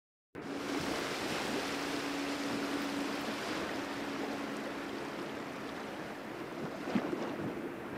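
Steady rushing of the open river and wind, with a faint low hum running through it; it cuts in abruptly just after the start.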